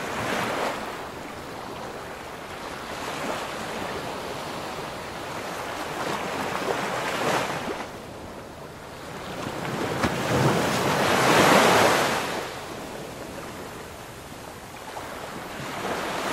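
Ocean surf washing up a sandy beach, swelling and fading as each wave breaks and runs in, the loudest surge about eleven seconds in, with wind on the microphone.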